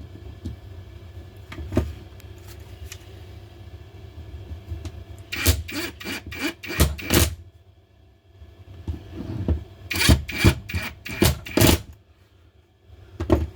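Screws being driven by hand into the plastic housing of a Makita DTD154 impact driver: light rubbing and scraping, with two clusters of sharp clicks and knocks, about five and ten seconds in.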